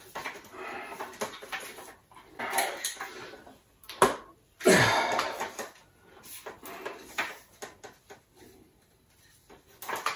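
Stiff rigid coax cable being wrestled by hand into a double loop and pushed through plastic spacers: a string of rubbing and scraping bursts with a sharp knock about four seconds in. Strained breathing from the effort runs through it.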